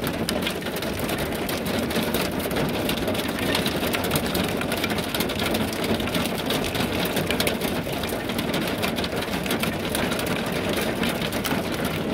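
Hail and rain pelting a camper van's roof and windows in a dense, steady clatter of rapid, irregular impacts.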